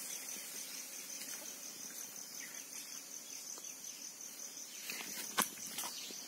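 Insects calling in a steady, high-pitched pulsing chorus, with one sharp click about five seconds in.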